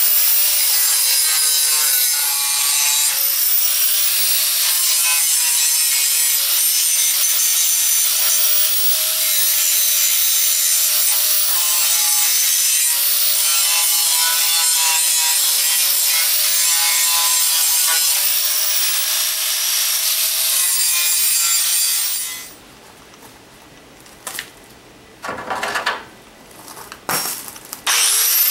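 Angle grinder grinding the sharp burrs off freshly drilled holes in a steel truck frame, cleaning the metal for welding. It runs continuously with its motor whine wavering under load, then stops about 22 seconds in. A few short bursts follow, and the grinder spins up again at the very end.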